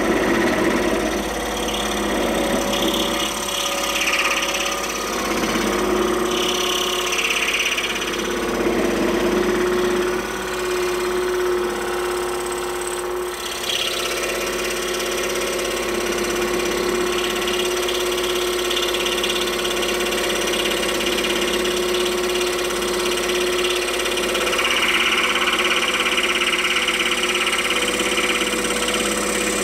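Scroll saw running steadily, its reciprocating blade cutting through a wooden blank, with a brighter rasping hiss that swells a few times as the blade bites into the wood.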